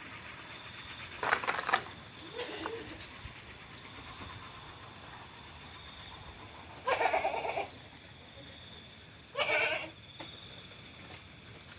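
An animal calling three times in loud, wavering, bleat-like cries, over a steady high-pitched chirring in the background.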